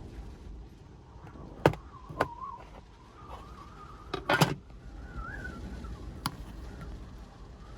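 Storm wind buffeting a small kei van, with a faint wavering whistle, heard from inside the cabin. Over it come a few sharp clicks and knocks, with a louder clattering cluster about four seconds in.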